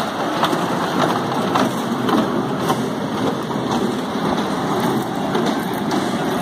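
Miniature ride train running on its circular track: a steady mechanical rumble with a light click a little under twice a second.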